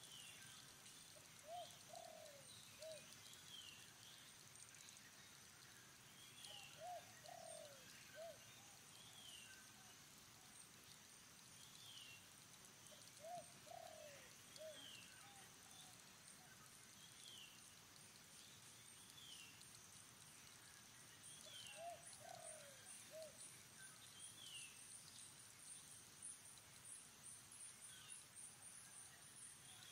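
Faint dove cooing: four phrases of three falling notes, several seconds apart. Another bird gives short falling chirps about every two seconds, and about two-thirds of the way in a high pulsing buzz starts.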